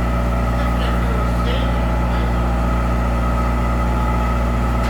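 A heavy engine running steadily at a constant speed, a deep even hum with no change in pitch or level.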